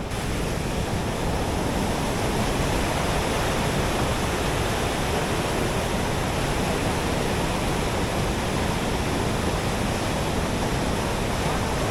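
Steady rushing of a powerful waterfall, High Falls, running high with spring snowmelt.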